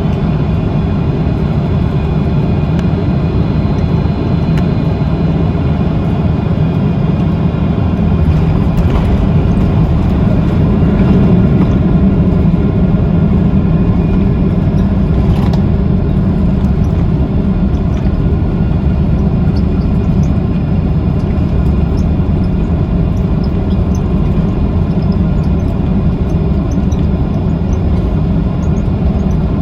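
Jet airliner's steady low rumble, with faint high whining tones above it.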